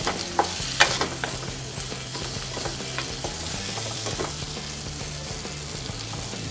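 Onions and tomato chunks sizzling in hot oil in a kadhai while a spatula stirs them, with a few sharp knocks and scrapes of the spatula against the pan in the first second and lighter ones after.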